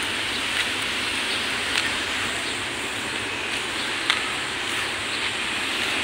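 Steady outdoor background hiss with no clear single source, with a few faint short clicks.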